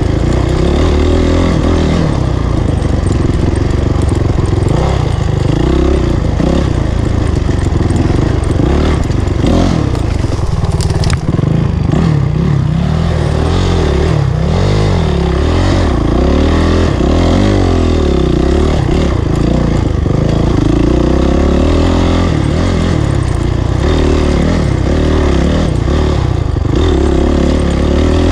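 Honda CRF450 single-cylinder four-stroke dirt bike engine ridden hard off-road, its pitch rising and falling constantly as the throttle is worked through the gears, with a sharp knock about eleven seconds in.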